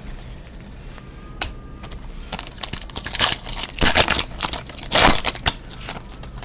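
Foil wrapper of a football trading card pack crinkling and tearing as it is opened by hand: scattered crackles at first, then a run of louder crinkles from about two seconds in that stops shortly before the end.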